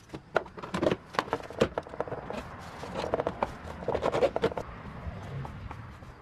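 BMW X5 plastic airbox and intake boot being handled and pushed back into place: irregular sharp plastic clicks and knocks.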